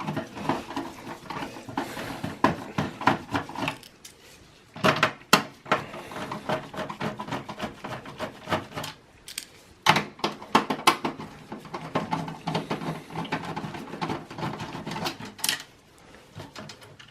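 Screwdriver taking out the motherboard screws inside a steel computer case: rapid small metallic clicking and scraping in three runs, with a few sharper clicks.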